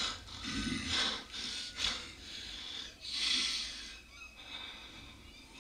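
Movie soundtrack of apes breathing hard, a string of heavy breaths with one longer, louder breath about three seconds in, growing fainter toward the end.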